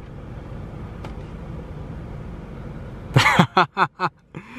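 Motorized overhead rear-seat entertainment screen of a Lexus LS460 folding down from the roof lining, a steady low whir. A voice begins about three seconds in.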